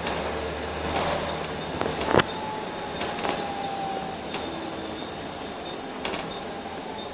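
Interior noise of a Wright Eclipse single-deck bus: a steady low rumble with rattles and clicks from the cabin fittings. The loudest is a sharp clunk about two seconds in, followed by a faint thin tone for about two seconds.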